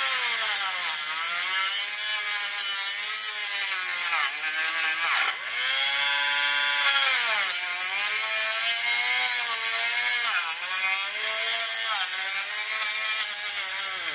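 Dremel rotary tool with a small saw blade cutting through brittle clear plastic: a high whine that sags in pitch each time the blade bites into the cut and climbs back as it eases off, over and over.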